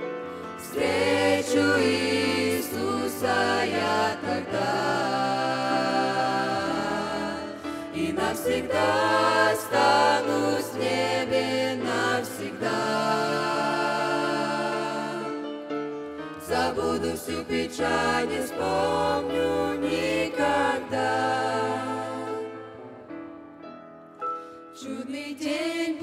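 A mixed youth vocal group sings a Russian-language Christian worship song in harmony, over held low chords. The singing dips quieter a few seconds before the end.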